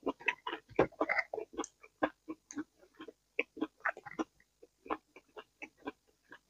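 Close-miked chewing of raw vegetables: irregular wet crunches and mouth clicks, several a second.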